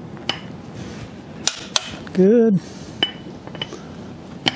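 Click-type torque wrench breaking over with sharp metal clicks as each wheel bolt reaches its set torque: a quick double click about a second and a half in and another click near the end, with a few lighter clicks from the wrench and socket between.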